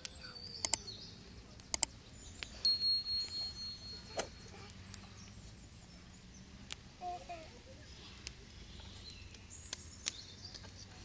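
Outdoor ambience with birds calling: a high, pulsing call lasting about a second and a half a few seconds in, and fainter chirps later. Several sharp clicks.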